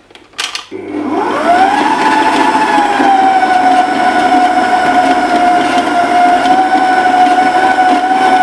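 SilverCrest stand mixer with a dough hook switching on. A click is followed by the motor whine rising over about a second, then running steady as the hook mixes flour into dough.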